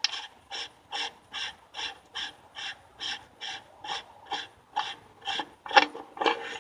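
Band adjusting screw on a Powerglide transmission case being backed out, giving a steady run of short rasping strokes about two a second, the last two louder.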